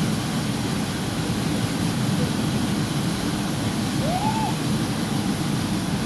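Waterfall pouring into a rocky pool: a steady, low rush of falling water. About four seconds in, a short whistle-like tone rises and falls.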